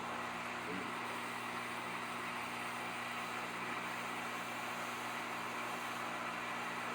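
Steady rush of blowing air with a low hum underneath: a hot air rework station heating a circuit board so the solder will melt.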